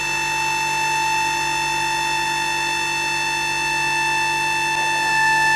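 EagleTec EA-T6015A CNC wood lathe running with a steady high-pitched whine, one held tone with a stack of overtones above it.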